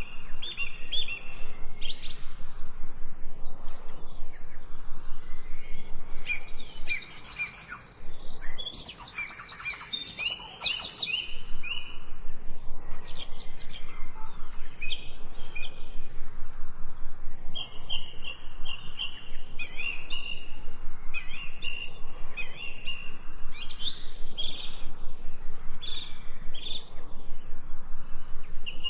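Several birds singing and chirping together in quick repeated high notes and short trills, with a brief lull about eight seconds in.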